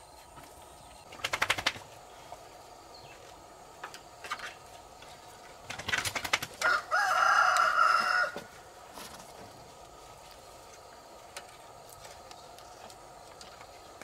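A rooster flaps its wings in two short flurries, one about a second in and one just before the middle, then crows once, a single held call of nearly two seconds.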